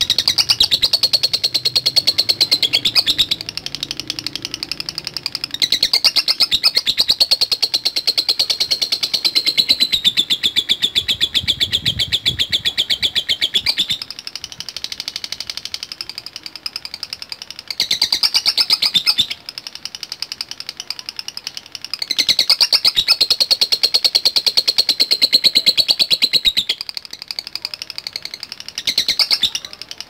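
Fischer's lovebird singing its long, rapid, high chattering trill (ngekek), running on almost without a break and swelling louder and softer every few seconds.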